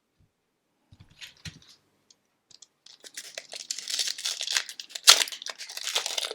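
Hockey card pack wrapper being torn open and crinkled by hand. There are a few faint handling noises at first, then a steady crackling from about halfway, with one sharp loud crackle near the end.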